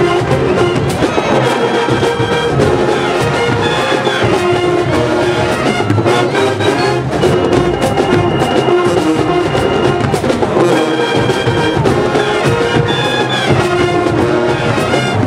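Marching band playing a stand tune from the bleachers: trumpets, trombones and sousaphones playing held brass chords over drums.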